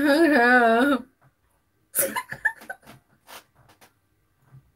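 A woman laughing: a long, wavering, high-pitched laugh for about a second, then short breathy bursts of giggling that die away.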